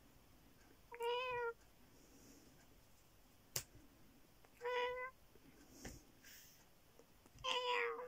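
Domestic cat meowing three times, short calls of about half a second each, spaced a few seconds apart. A single sharp click comes about three and a half seconds in.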